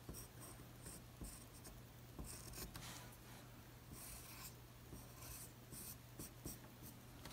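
Pencil scratching on paper in short, irregular strokes, faint, as a figure drawing is sketched and shaded.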